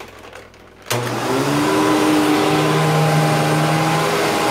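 Hoover WindTunnel twin-chamber upright vacuum cleaner switched on about a second in, its motor whining up to speed and then running steadily and loudly.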